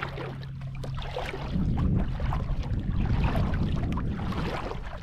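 Water sloshing and splashing, with wind rumbling on the microphone from about a second and a half in.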